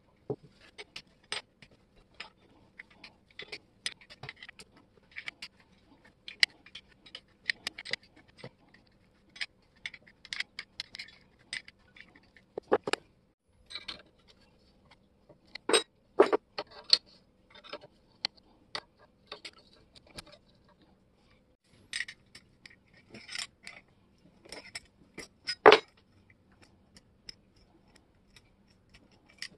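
Small metal parts of vintage three-blade grass shears clinking, clicking and scraping as the shears are taken apart and handled on a workbench. There are scattered light clicks, with a few louder knocks around the middle and near the end.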